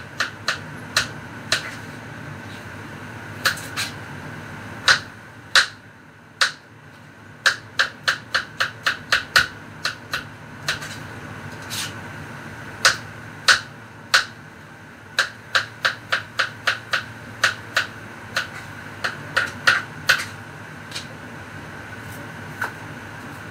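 Knife chopping vegetables on a cutting board: sharp taps in uneven runs of several a second, with short pauses between runs.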